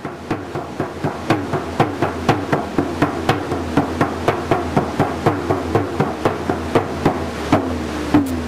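Hand frame drum with a pale hide head beaten in a steady beat of about three strokes a second, with a man singing over it; the strokes space out near the end.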